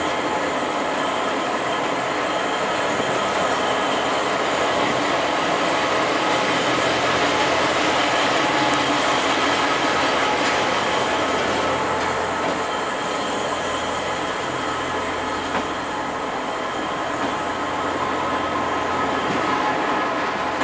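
Diesel locomotive idling at a standstill: a steady mechanical drone with a dense whirring hum that does not change in level.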